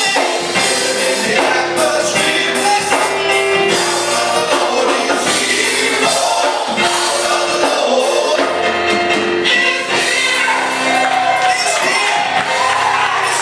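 Live worship music: voices singing together over instrumental accompaniment with percussion.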